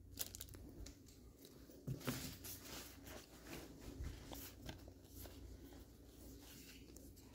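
Faint rustling and soft clicks of a stack of freshly unpacked Pokémon trading cards being handled and fanned in the hands, with a few light taps.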